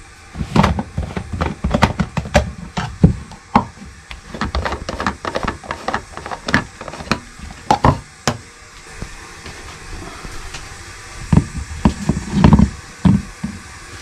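Kitchen handling sounds: a rapid run of clicks, knocks and clatter as a thermos flask is opened and a coffee filter cone is set on it on a wooden counter. The clatter thins out after about eight seconds, with a few louder knocks near the end.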